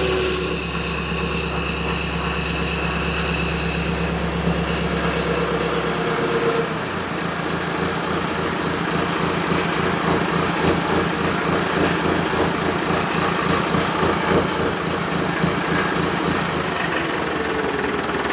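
Ferguson tractor's diesel engine running while its hydraulics slowly move the mounted vine-tying machine, with the hydraulic oil still cold. A whine sits over the engine for the first six seconds or so, then the sound changes to a steady, rapid pulsing.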